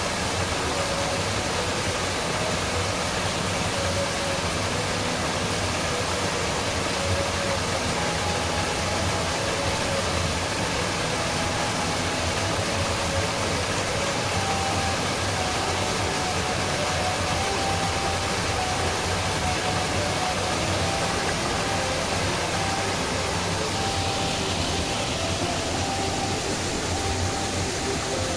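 Small waterfall splashing over rocks into a shallow pool: a steady rush of falling water.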